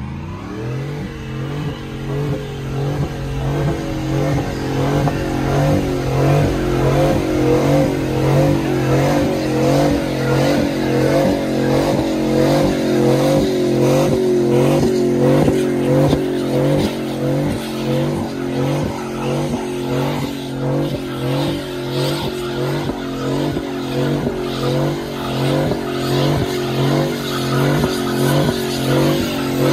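Pickup truck doing a burnout: its engine revs up at the start and is then held at high revs, the pitch wavering in a regular pulse about once or twice a second, while the rear tyres spin and screech on the pavement.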